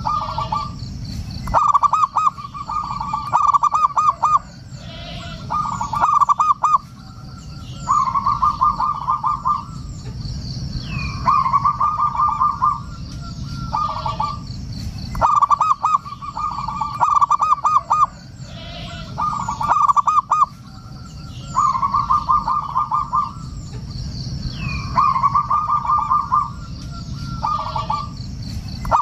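Zebra dove (perkutut) cooing: short phrases of rapid staccato notes, repeated about every two seconds. Fainter high chirps from other small birds are heard over a steady low background noise.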